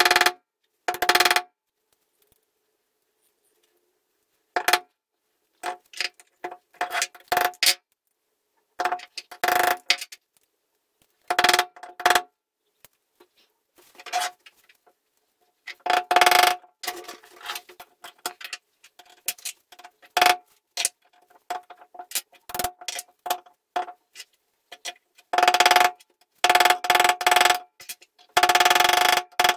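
Hammer blows on the metal body of a hand breast drill clamped in a vise, each strike ringing with a clear metallic tone. The blows come in clusters of one to three, with lighter clicks and taps of small metal parts being handled between them.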